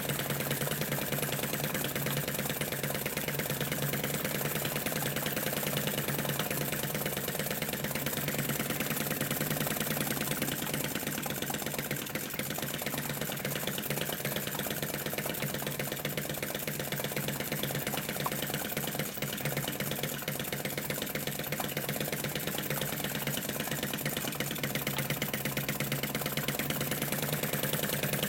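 Model Lanz Bulldog flame-eater engine running steadily with a fast, even clatter, belt-driving a model Stuart oil field pump and a small generator.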